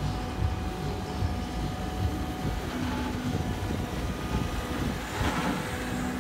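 Menzi Muck M545X walking excavator's 136 hp Deutz diesel engine and hydraulics running steadily, with most of the sound low down, as the boom and wheeled legs are worked. A brief hiss comes about five seconds in.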